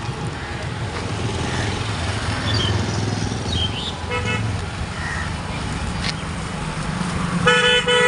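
Road traffic with vehicle engines running steadily, a short horn toot about halfway through and a louder, longer horn honk near the end.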